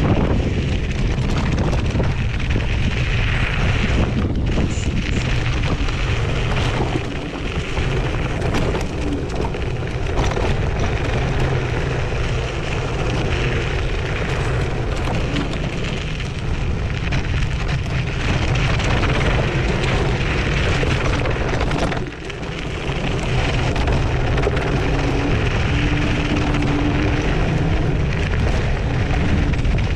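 Zero 10X electric scooter riding over loose gravel and shale: knobby tyres crunching and the frame rattling, with a steady rumble of wind on the microphone. The noise eases briefly twice along the way.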